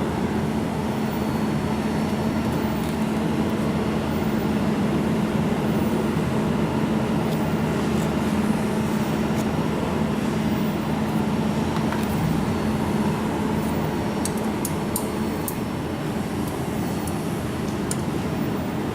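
Steady machine hum with a constant low tone, with a few faint sharp clicks in the last few seconds.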